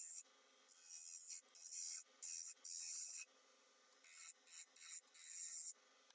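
Hand-held turning tool scraping a spinning wooden blank on a small wood lathe, in a series of short, high-pitched hissing strokes, each under a second long. The cutting stops shortly before the end.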